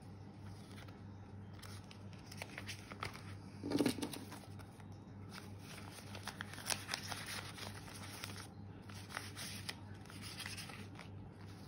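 Australian polymer banknotes and clear plastic binder sleeves rustling and crinkling as cash is counted and slid into a zip envelope. Scattered light clicks run through it, with a louder rustle about four seconds in, over a faint low hum.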